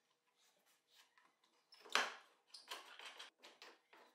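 Plywood sander table being handled and lifted off its wooden support brackets: one sharp wooden knock about two seconds in, then a few light clicks and taps.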